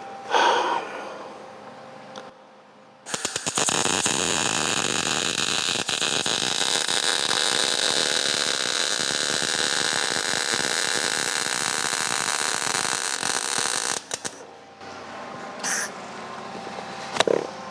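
Welding arc crackling steadily while a bead is laid, for about eleven seconds starting about three seconds in, then cutting off.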